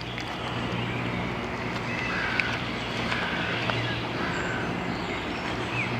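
Outdoor background: a steady low hum under an even hiss, with a few short, high chirps around the middle.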